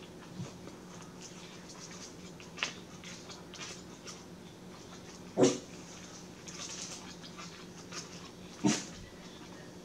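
A pet dog barking twice: two short barks about three seconds apart.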